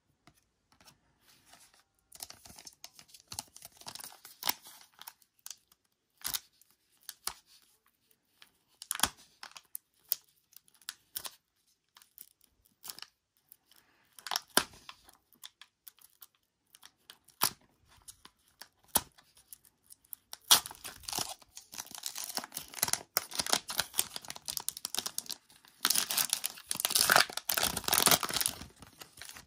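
Foil trading-card pack wrapper being torn open and crinkled by hand. Scattered rustles and clicks of handling come first, then the tearing and crinkling turn dense and louder over the last third.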